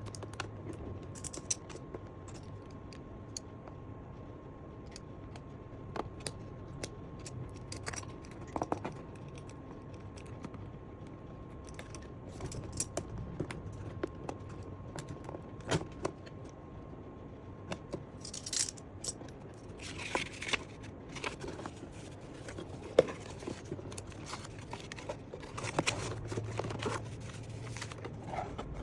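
Unboxing sounds: scattered clicks, taps and rustles of a camera box and its packaging being handled, with longer stretches of rustling and tearing about two-thirds of the way through and again near the end. A faint steady tone runs underneath.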